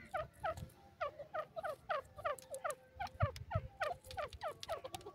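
Grey francolin calling: a fast run of short, sharply falling notes, about four a second. Two low thumps come a little over three seconds in.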